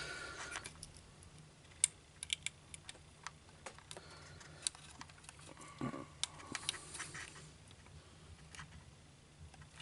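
Scattered light clicks and taps of small plastic model parts being handled and pressed together, as a pin that is too long is test-fitted and will not seat fully.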